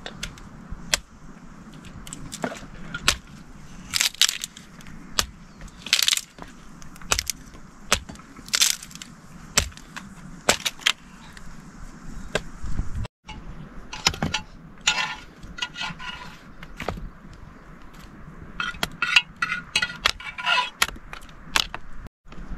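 Irregular sharp knocks and clicks of objects being handled, with bursts of light metallic clinking about two-thirds of the way in and again near the end.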